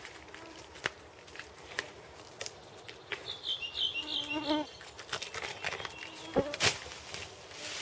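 A flying insect buzzes past for about a second and a half in the middle. Around it are scrapes and clicks of a man climbing down a tree trunk, with two loud knocks about six and a half seconds in.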